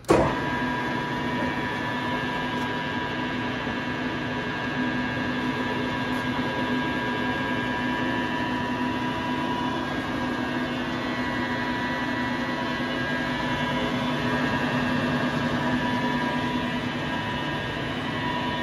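LeBlond Regal servo-shift engine lathe running under power, a steady mechanical hum with a constant gear whine from its headstock and feed gearing. It comes right after a sharp clunk as a control lever is thrown at the start.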